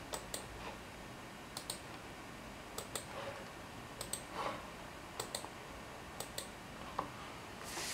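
Quiet clicking: short sharp clicks, mostly in close pairs, about one pair a second.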